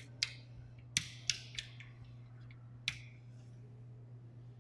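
Five short, sharp clicks spread over the first three seconds, the loudest about a second in, over a steady low hum.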